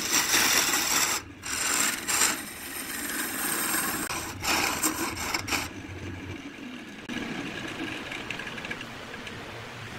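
Turning tool cutting a spinning blank of colored pencils glued with epoxy on a wood lathe: a harsh scraping in several bursts, broken as the tool lifts off now and then. After about six seconds the cutting stops and only a quieter steady running noise remains.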